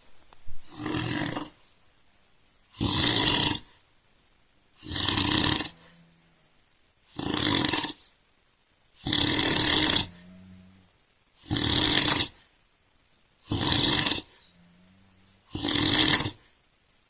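A man snoring heavily in sleep, with one loud snore on each in-breath about every two seconds, eight in all. Some of the quiet out-breaths carry a faint low hum.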